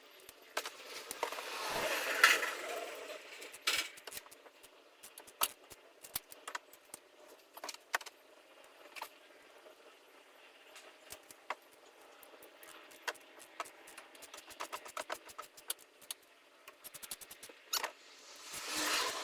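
Hand tools and metal engine parts clinking and clicking irregularly during engine reassembly work, with a louder scraping or rustling burst about two seconds in and another near the end.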